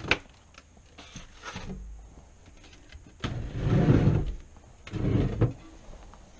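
A heavy cast-iron pot being pulled out of kitchen storage: a sharp click at the start, a few light knocks, then two louder sliding noises about three and five seconds in, the first about a second long.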